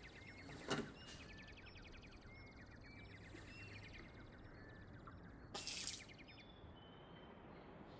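Soft outdoor ambience with birds chirping throughout. A short sharp crackle comes under a second in, and a louder half-second rustle comes near six seconds, as a plastic water bottle is handled.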